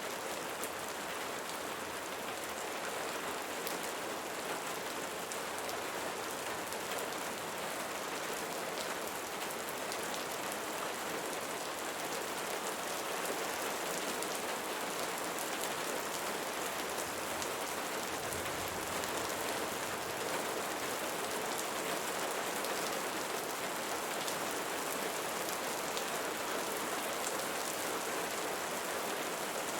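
Steady rain falling, an even hiss with many small drop hits sprinkled through it.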